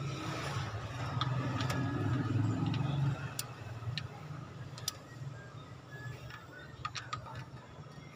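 Socket wrench with an extension working the bolts of a new water pump: scattered sharp metallic clicks and ticks as the bolts are checked for tightness. A low hum sits underneath, loudest in the first few seconds.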